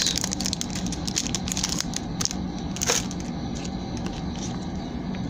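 Plastic trading-card sleeve crinkling with scattered small clicks as a card is slid into it, with one louder snap about three seconds in, over a steady low hum.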